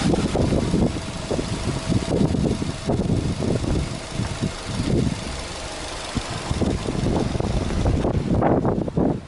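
Subaru Legacy Touring Wagon 2.0GT's EJ20 turbocharged flat-four engine idling, an uneven low rumble.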